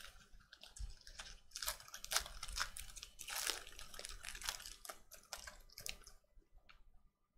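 A foil trading-card pack wrapper being torn open and crinkled by hand, a dense run of irregular crackles that stops about six seconds in.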